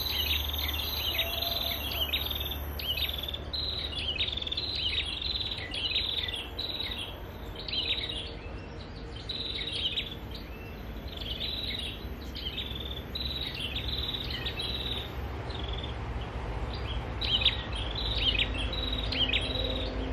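Perenjak (prinia) song: bright, rapid chirping phrases repeated over and over, used as a lure. A low steady rumble runs underneath.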